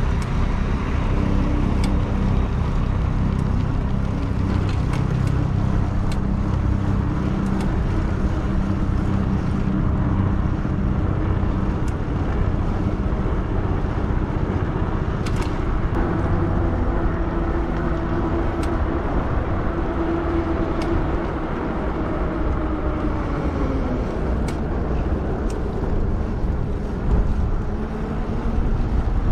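Steady wind and road noise from riding a Lectric XP e-bike, with a faint whine that slowly shifts in pitch.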